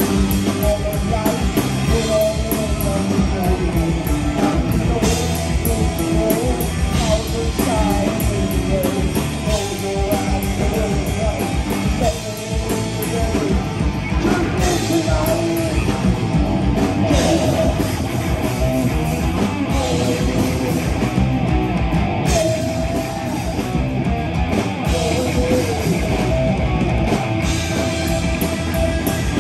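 Live heavy metal band playing loud: distorted electric guitars, bass guitar and a drum kit, with a wavering lead guitar line over a steady drum pulse.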